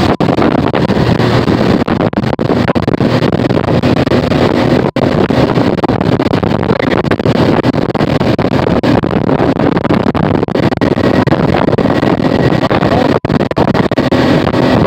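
Mercury EFI 40 hp outboard motor running steadily at speed under way, with wind buffeting the microphone.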